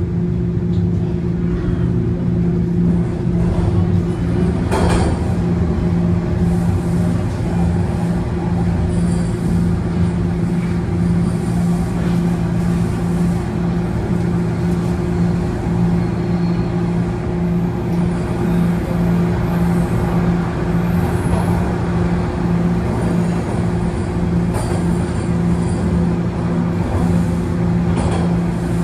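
Toronto Rocket subway train running at steady speed, heard inside the car: a loud, even hum with a constant low drone over the rumble of wheels on track. One brief click about five seconds in.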